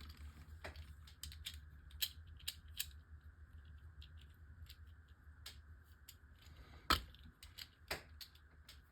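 Scattered light clicks and taps of small plastic Beyblade Micros pieces being handled, with a sharper click about seven seconds in and another about a second later.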